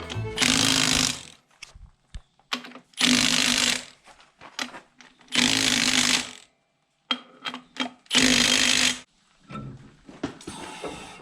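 Impact wrench running in four bursts of about a second each, hammering wheel lug nuts on a tractor wheel, with clicks and knocks of handling between the bursts.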